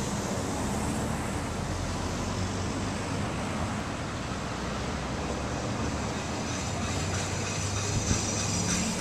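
Street traffic noise with a vehicle's engine hum building in the second half of the clip.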